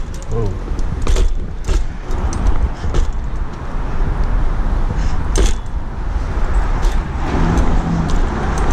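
BMX bike rolling over stone paving slabs, with a steady rumble of wind and tyres on the microphone and the bike's parts rattling and clanking at irregular moments as it crosses the joints.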